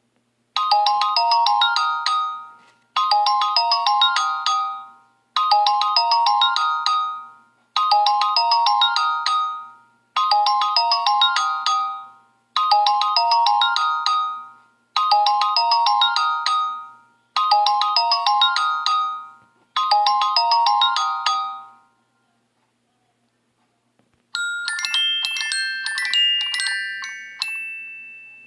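Phone ringtone playing: a short melodic phrase of quick notes repeated nine times, about every two and a half seconds, then stopping. After a two-second pause a different, higher tone of chiming notes starts and fades away.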